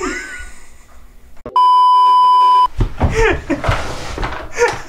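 Censor bleep: one loud, steady beep about a second long, starting about a second and a half in, with voices before and after it.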